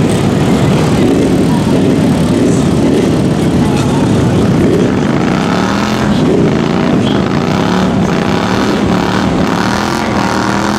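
Engine of a lifted mud ATV revving in deep mud, its pitch rising and falling over a steady rumble.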